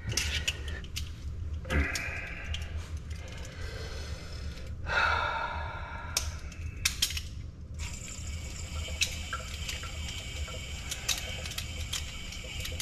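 Water running through sink plumbing, swelling louder twice, with scattered clicks and knocks over a low steady hum.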